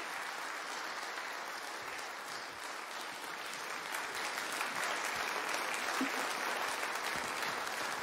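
Congregation applauding with steady clapping that grows a little louder about halfway through.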